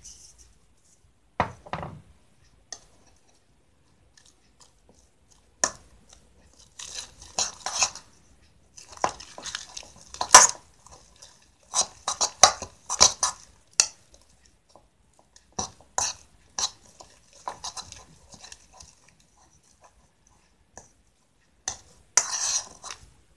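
A metal utensil scraping and clinking against a bowl in short bouts, stirring a sticky slime mixture of glue and shaving foam. There is a short knock about a second and a half in.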